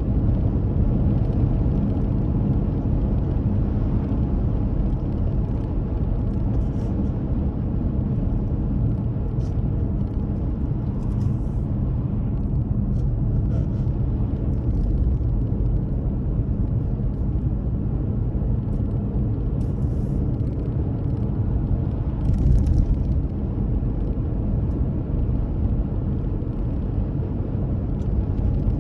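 Steady low rumble of a car driving along the road: engine and tyre noise with a faint steady hum, and a few brief faint ticks.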